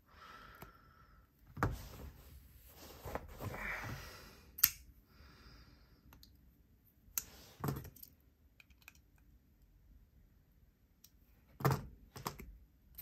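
Finch Cherry Bomb folding knife being worked open and closed by hand as its pivot action is checked for play and blade drop: a few sharp clicks of the blade, the loudest about five seconds in, with soft rubbing of handling between them.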